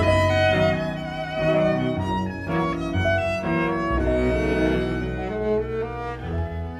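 Background music for bowed strings, a violin melody over cello, with held notes changing every half second or so.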